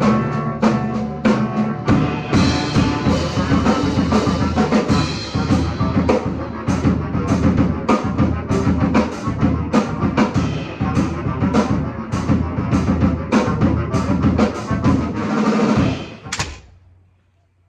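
Heavy metal music played by a bass clarinet ensemble with a drum kit: steady low held notes under fast, driving drum hits. It stops abruptly about sixteen seconds in.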